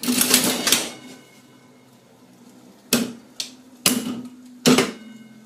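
Mills one-arm bandit reel mechanism set going with a clatter, its three reels spinning with a faint whirr, then three sharp clacks about a second apart near the end as the brakes lock each reel in turn. The brakes are slow to kick in: the brake timing needs adjusting.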